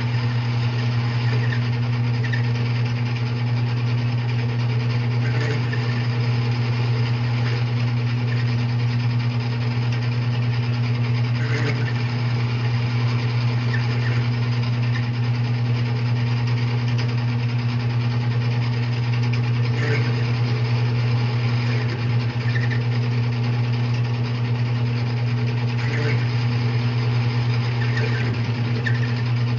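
Metal lathe running steadily with a strong, even low hum while turning down and facing a steel bolt blank.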